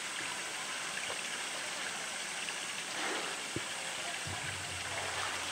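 Pool water sloshing and splashing as a polar bear swims, pushing a floating plastic tank, over a steady rush of moving water. There is a single light knock about three and a half seconds in.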